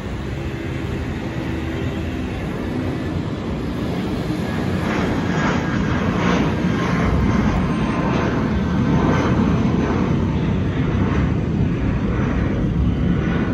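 Airbus A319-132's twin IAE V2500 turbofan engines rumbling overhead at climb power shortly after takeoff, growing louder as the airliner passes.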